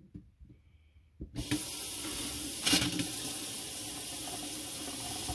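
Delta kitchen faucet turned on about a second in, water running steadily into the sink.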